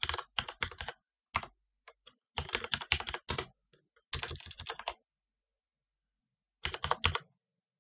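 Typing on a computer keyboard: quick runs of keystrokes in short bursts, with a pause of a second and a half about five seconds in before a last short run.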